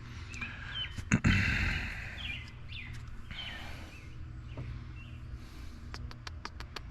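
Hand-tool work on a diesel engine's fuel injector return lines: a loud clank about a second in, then a quick run of sharp clicks near the end, over a steady low hum. Birds chirp now and then.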